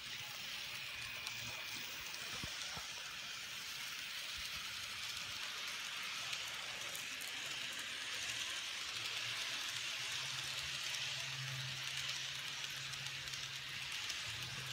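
N-scale model train running on its track: a steady fine rolling hiss of the small wheels on the rails, with a low motor hum that grows louder in the second half as the train passes close.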